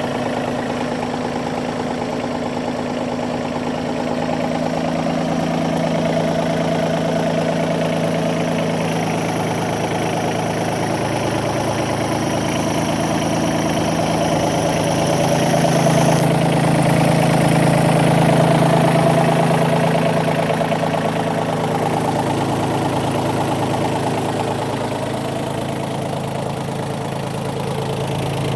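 Bobcat B250 loader backhoe's diesel engine idling steadily, a little louder about halfway through.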